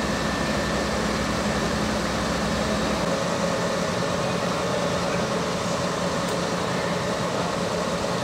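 Fire trucks' diesel engines running with a steady drone. The deep rumble drops away about three seconds in.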